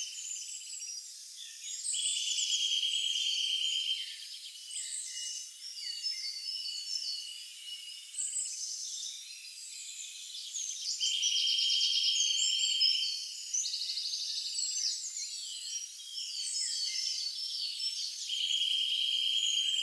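Woodland birds singing and calling together, many overlapping chirps, whistles and trills. A long, even trill stands out three times: a little after the start, about halfway, and near the end.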